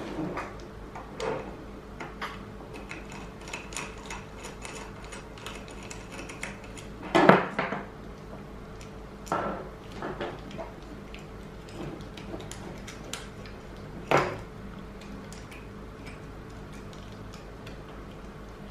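Small clicks, clinks and knocks of hands working on a Belkin car inverter's opened aluminium casing and circuit board with a screwdriver, with a few sharper knocks about seven and fourteen seconds in.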